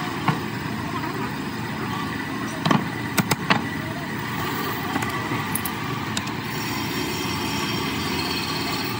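Cast-iron donkey pump parts knocking and clinking together as a motor end cover is set onto the pump body. There are a few sharp clanks about three seconds in and light clicks later, over a steady background noise.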